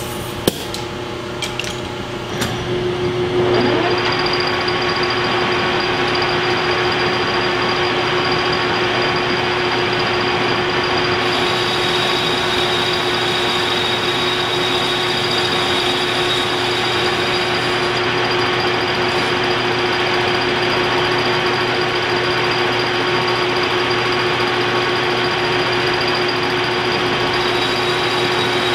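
Metal lathe spinning up about three seconds in after a few clicks, then running steadily with a steady whine. A thin carbide boring bar takes light cuts of a couple of thousandths inside the spinning workpiece.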